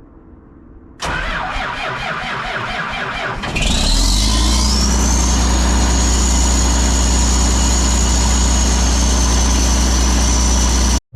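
Diesel farm engine cranking over with a rhythmic churn, then catching about three and a half seconds in and settling into a steady run, with a high whine that rises as it catches and then holds level. The sound cuts off suddenly near the end.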